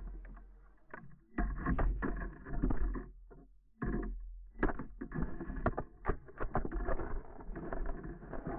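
Team Associated Rival MT10 RC monster truck tumbling down a gravel slope with a GoPro on its body: a run of irregular knocks and crunches as it rolls and hits the ground, with bursts of electric motor whine and a low rumble on the microphone. It settles near the end.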